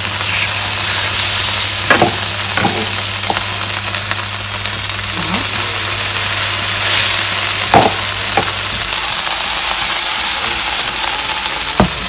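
Floured pork cutlets sizzling in butter and olive oil in a frying pan, a steady hiss broken by a few sharp knocks against the pan.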